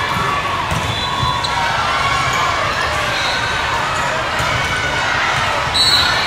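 Busy volleyball hall: a constant din of many voices and shouts with the thuds of volleyballs being hit and bouncing on the courts. Short high whistle blasts sound about a second in and, louder, near the end.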